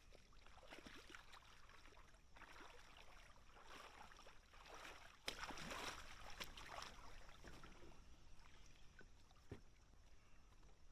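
Faint swishing and splashing of water around an inflatable paddle board moving through a shallow creek. About five seconds in there is a sharp knock, followed by a louder rush of water for a second or two.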